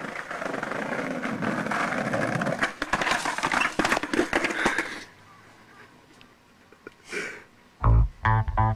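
Skateboard wheels rolling on stone paving with sharp clacks and knocks as the skater goes for the stairs and bails, the board clattering onto the stone steps. About five seconds in the clatter stops and it goes much quieter; near the end a rock track with guitar and bass starts.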